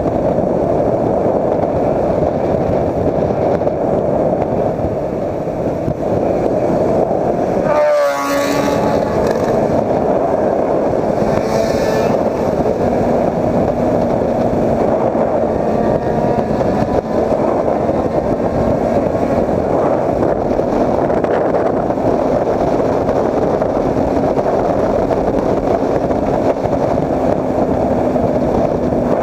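Motorcycle cruising at highway speed, heard as a loud, steady rush of wind on the camera microphone with the engine's even hum underneath; a brief warbling sound about eight seconds in.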